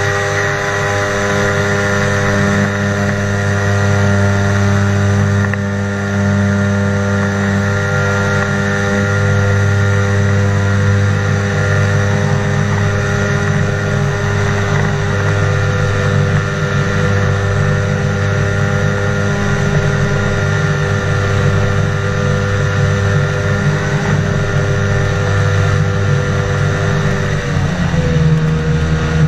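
Ultralight flying boat's engine and pusher propeller running steadily and loudly through its takeoff run across the water and its climb, with rushing air. Near the end the engine's pitch drops slightly.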